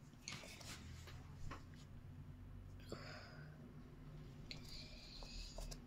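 Faint clicks and rustles of cardboard jigsaw pieces being handled on a puzzle board, over a low steady hum. A soft hissing rustle lasts about a second near the end.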